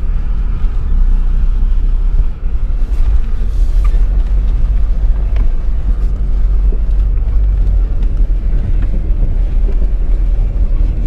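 Mitsubishi Pajero diesel running while driving: a steady deep rumble of engine and running gear. The engine is giving irregular bursts of throttle on its own, which the occupants suspect is a fuel pump fault after something got wet.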